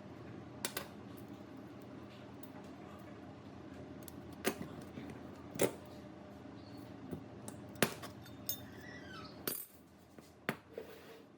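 Metal parts being handled, clinking and knocking: about six sharp, separate knocks over a low steady hum.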